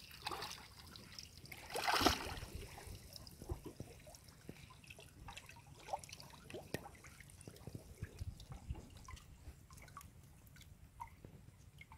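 Water trickling and dripping from a woven bamboo basket lifted out of shallow water, with one louder splash about two seconds in. After that come faint scattered clicks and rustles of hands working through the wet basket.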